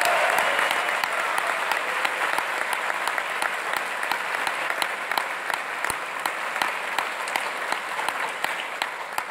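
Audience applauding, many hands clapping at once. The clapping slowly thins and dies down toward the end.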